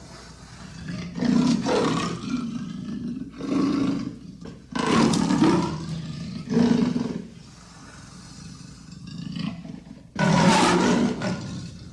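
Leopard calling: a series of about five short roaring calls, each about a second long or less, with a longer pause of a few seconds in the middle.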